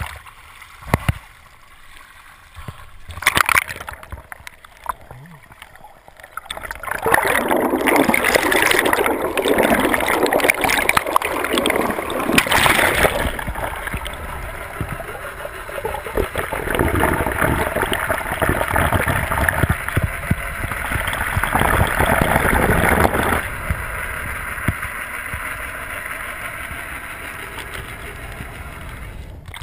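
Water rushing and gurgling around an underwater camera as a diver on a boat-towed tow board is pulled through the sea. It starts quieter, with a few knocks and splashes, and gets much louder about seven seconds in.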